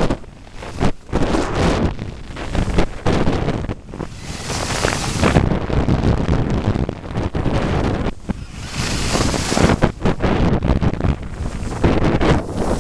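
Wind buffeting the microphone of a camera carried by a skier going downhill, with the hiss and scrape of skis on snow swelling and fading in waves as the skier turns.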